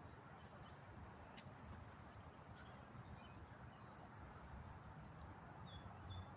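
Near silence outdoors: a faint low wind rumble with a few short, faint bird chirps.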